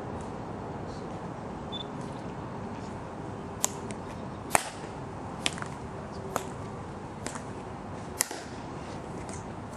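Ceremonial guard soldier's metal-tapped dress shoes clicking sharply on the stone plaza as he marches, about seven heel strikes a little under a second apart, starting about a third of the way in, over a steady outdoor background noise.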